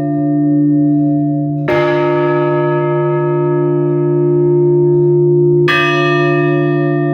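Church bell struck twice, about four seconds apart, funeral tolling for an Orthodox service of the dead. Each stroke rings on with long, steady overtones over a constant low hum from the still-sounding bells.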